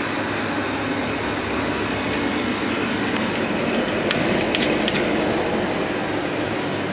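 Two-bowl slush machine running, with its cooling unit and auger motors making a steady mechanical hum while the spiral augers churn the half-frozen slush. A few sharp clicks about four to five seconds in.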